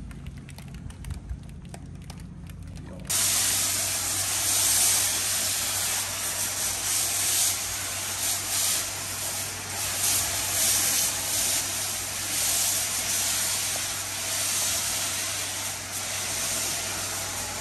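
Pressure-washer lance spraying cleaning foam onto a truck's wheel and cab: a loud, steady hiss that starts suddenly about three seconds in, over a steady low hum.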